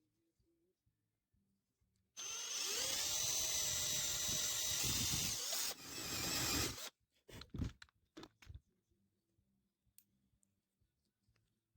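Handheld power drill running for about four and a half seconds, with a steady high whine, briefly easing off and picking up again before it stops; a few knocks follow.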